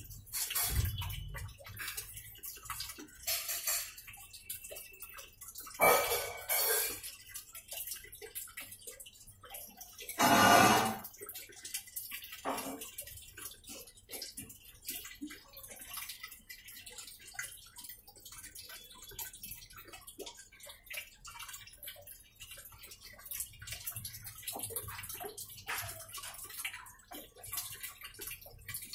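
Water sloshing and splashing in the tub of a Midea top-load washing machine, irregular throughout, with louder surges about six and ten seconds in.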